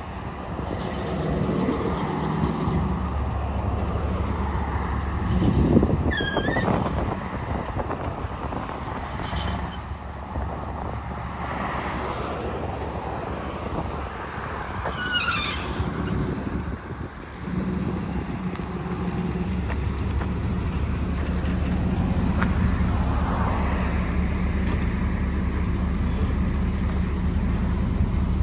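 Car engines running and revving, with two brief high squeals about 6 and 15 seconds in; the engine sound grows steadier and louder from about two-thirds of the way through.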